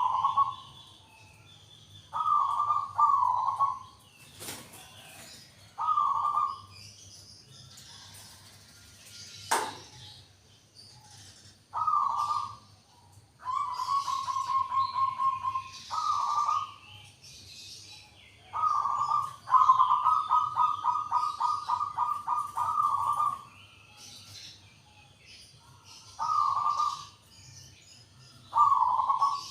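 Zebra dove (perkutut) cooing: about nine short coo phrases at even intervals, two of them drawn out into long rapid rolling trills in the middle. Two sharp clicks are heard in the first third.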